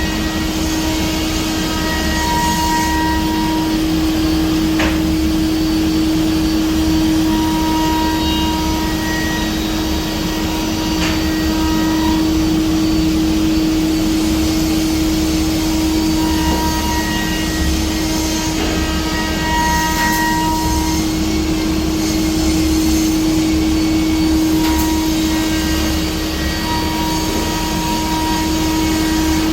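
Biesse Rover A five-axis CNC woodworking router running: a steady loud hum with a constant low tone, over which higher whines come and go every few seconds as it works. A few sharp clicks sound along the way.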